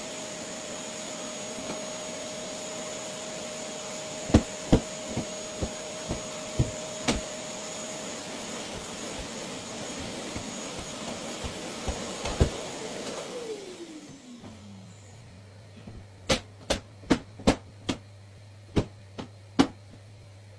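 Canister vacuum cleaner running with a steady whine, with several sharp knocks as its hose and wand are handled. About two-thirds of the way through it is switched off and the motor winds down with a falling pitch. A run of sharp knocks follows.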